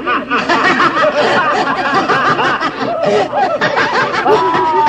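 Several voices cackling and laughing at once in overlapping, rapid bursts. A long, slightly falling high note joins near the end.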